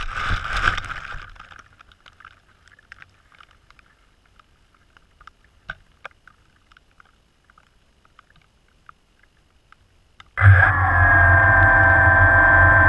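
A brief noisy rush, then quiet with faint scattered ticks; about ten seconds in, the DJI Phantom quadcopter's electric motors and propellers start abruptly and spin at a steady whine of several tones over a low hum.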